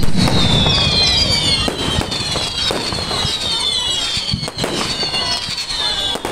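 Aerial fireworks display: a loud shell burst right at the start, then repeated sharp bangs and crackling. Over them runs a dense layer of many high whistles gliding down in pitch.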